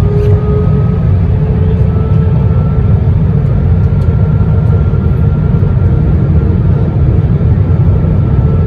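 Airbus A321-131 cabin noise in flight: a loud, steady low rumble of airflow with the hum of its IAE V2530 turbofan engines, whose pitch steps up slightly near the start and again about two seconds in.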